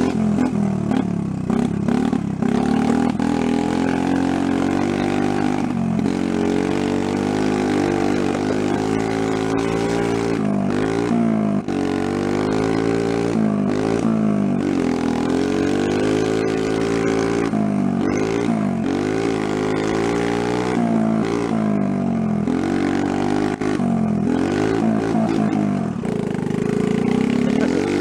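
Small Honda 50cc single-cylinder four-stroke engine of a mini trail bike under way, its pitch rising and falling again and again as the throttle is opened and eased off.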